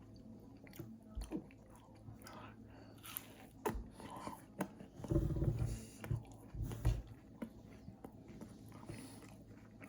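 A person biting and chewing a Rice Krispie treat square, with faint crunching and mouth sounds. Around five to seven seconds in there are a few louder low thumps.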